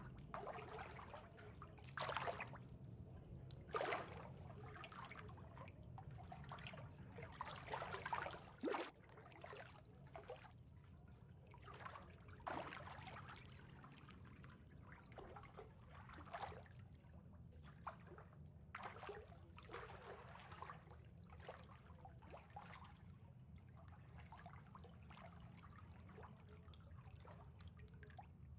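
Water trickling and lapping softly in irregular small splashes over a steady low hum, with a few louder splashes in the first eight seconds.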